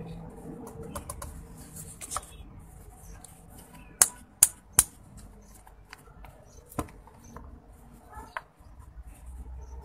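Cornflour being tipped into a nonstick pan, with soft scrapes and small clicks, and three sharp taps in quick succession about four seconds in, then a single tap near seven seconds: a cup or spoon knocked against the pan to shake the flour out.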